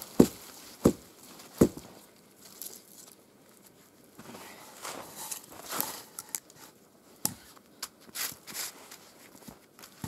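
Someone working in deep snow: three heavy thumps about two-thirds of a second apart in the first two seconds, then softer scattered crunching of snow and rustling as a log is handled onto a wooden post.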